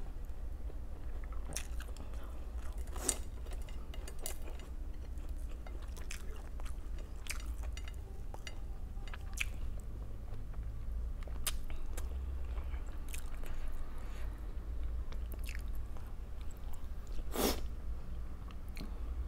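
Close-miked chewing of food, with short crisp crunches of fried food now and then and one sharper crunch near the end. A low steady hum runs underneath.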